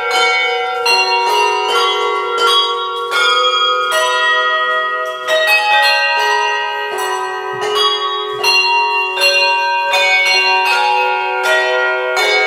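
Handbells playing a carol tune: a steady run of struck notes, about two a second, each ringing on under the next, with several bells often sounding together.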